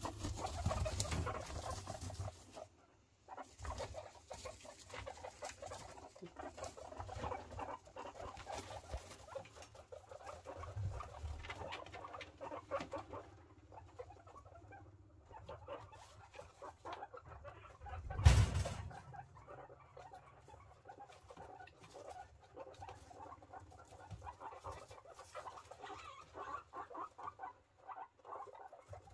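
Guinea pigs, a mother with her day-and-a-half-old pups, making short repeated calls, with rustling in wood-shaving bedding. One loud knock about two-thirds of the way through.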